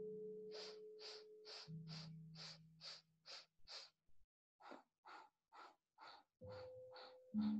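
Segmented Kundalini yoga breathing: a run of eight short, sharp breath strokes at a bit over two a second, a brief pause, then a second run of softer strokes, the breath broken into eight parts in and eight parts out. Soft background music plays under it.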